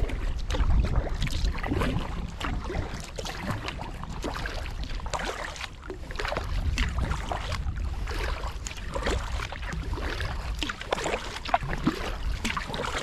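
Double-bladed kayak paddle strokes: the blades dip and pull through river water, splashing and dripping stroke after stroke, over a steady low rumble.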